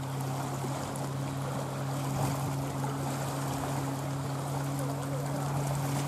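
Small waves lapping and splashing in shallow sea water, over a steady low motor hum that does not change.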